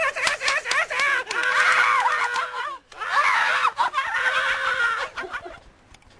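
A person screaming: long, high-pitched cries with short breaks between them, dying away near the end.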